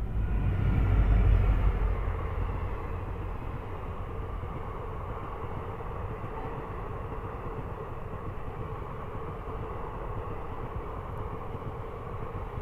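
Diesel-hauled passenger train passing close by: the locomotive goes by loudest about a second in, followed by the steady rolling noise of the coaches' wheels on the rails.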